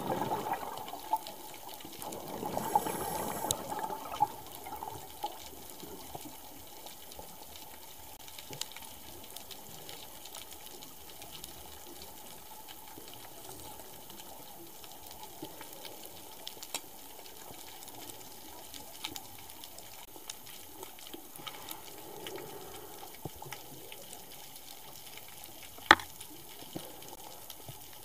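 Underwater recording: a scuba diver's exhaled bubbles rush out of the regulator at the start and again about two to four seconds in, then a low steady hiss with scattered small clicks, and one sharp click near the end.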